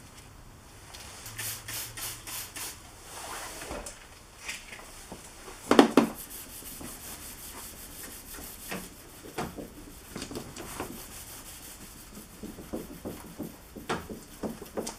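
Hand rubbing and wiping strokes on car bodywork, irregular and scratchy, with the loudest stroke about six seconds in.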